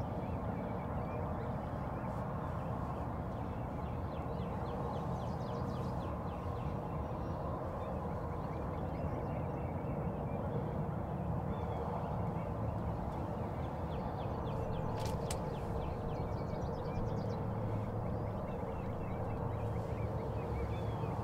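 Steady rushing outdoor background noise in a field, with faint bird chirps scattered through it and a single sharp click about fifteen seconds in.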